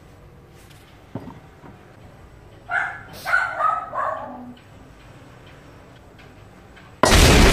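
A dog barking several short times about three seconds in, with a couple of soft knocks before it. Near the end comes a sudden loud burst of hiss.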